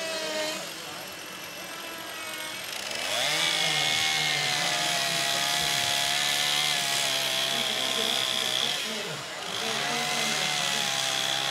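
A small cordless power carving tool running at high speed with a steady whine as it cuts into the carved wood. It starts about three seconds in, drops off briefly near the nine-second mark, then runs again.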